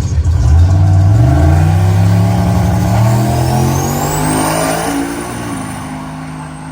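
Turbocharged Chevrolet Malibu accelerating hard, its engine note climbing and dropping back through several gear shifts as it fades into the distance. A high whine rises over the engine partway through.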